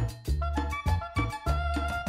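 Background music: an upbeat tune with a steady beat and a bright melody of short high notes that comes in about half a second in.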